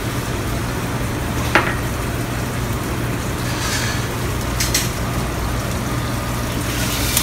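Marinated chicken pieces sizzling steadily in a hot, oiled sauté pan on a gas burner, over a steady low hum, with a couple of short clicks.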